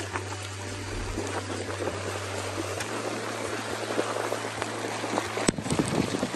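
Water rushing and splashing against a small motorboat's hull in choppy water, with a low steady hum underneath.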